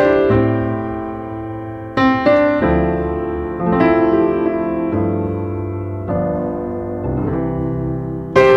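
Outro music: a piano playing slow chords, each struck chord fading before the next, a new one about every second or so.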